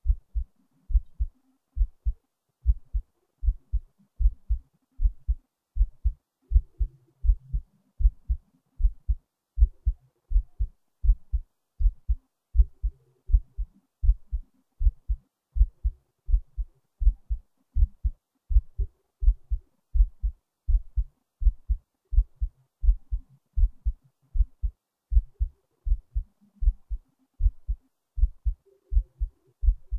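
Heartbeat: a steady, regular run of low lub-dub double thumps, about one beat a second.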